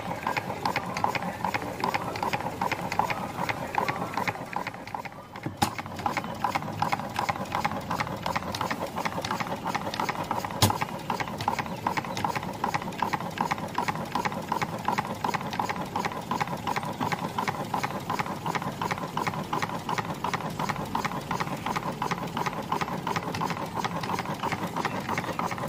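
Homemade spark-ignition petrol engine running at high speed, a fast even firing beat with mechanical clatter from its flywheel and connecting-rod linkage. The sound dips briefly about five seconds in, and there are two sharp clicks.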